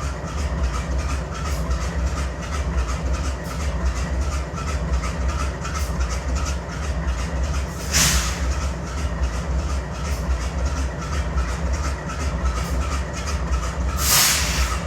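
GE Dash 9-44CW diesel locomotive's 16-cylinder engine idling with an audible misfire, a throbbing low rumble that marks an engine in poor health. Two short bursts of air hissing stand out, about halfway through and again near the end.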